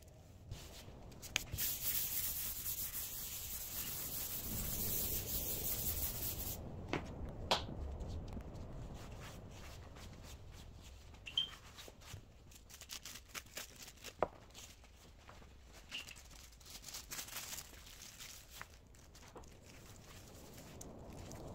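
Rubbing on a bare oak tabletop. A loud, steady hissing rub runs for about five seconds near the start, then quieter, uneven wiping follows with a few sharp knocks, as an oil finish is wiped onto the wood.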